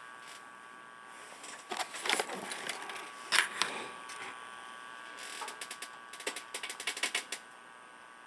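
Scattered light clicks and taps, with a quick run of clicks between about five and seven and a half seconds in, over a faint steady high electrical hum.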